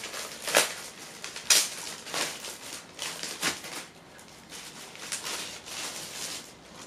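Clear plastic packaging bag crinkling and rustling as it is pulled open by hand, with several sharp crackles, the loudest about half a second and a second and a half in.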